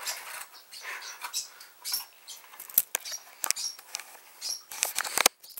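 Small plastic Zippo flint pack being worked open by hand: irregular sharp clicks, taps and scratchy rustling, with a cluster of sharper clicks near the end.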